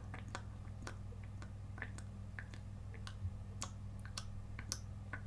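Faint, irregular wet mouth clicks, a few a second, as the tongue is raised and lowered with the mouth open, over a steady low electrical hum.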